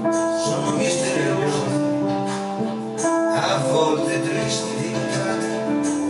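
Instrumental passage played live on a Roland E-86 arranger keyboard and a digital piano: steady chords with a plucked, guitar-like accompaniment and no singing.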